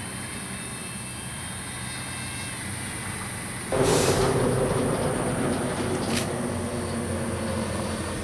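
Electric motor and propeller of a small radio-control delta plane buzzing in flight. About three and a half seconds in the sound jumps suddenly louder into a rushing, rougher buzz as the plane passes low.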